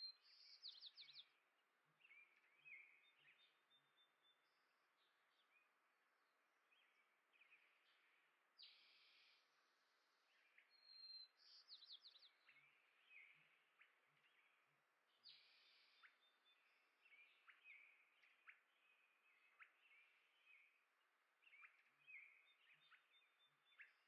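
Faint chirps and short calls from a group of songbirds, scattered throughout, with a couple of harsher rasping calls.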